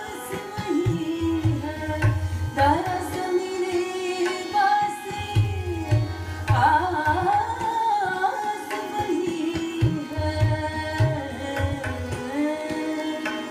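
A woman singing a devotional bhajan in Raag Bhairavi, her voice gliding between long held notes over low, irregular drum strokes.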